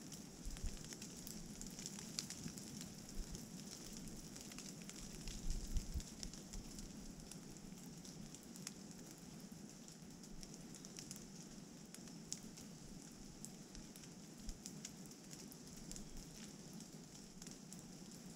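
Light rain pattering on leaves and leaf litter, a fine crackle of scattered drops over a soft steady hiss, with a brief low rumble of wind about five to six seconds in.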